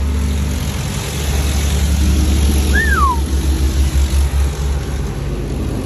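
Automatic car wash pouring water and soap over the car, heard from inside the cabin as a loud, even rush of spray over a deep rumble that pulses for about a second midway. One short falling squeal about three seconds in.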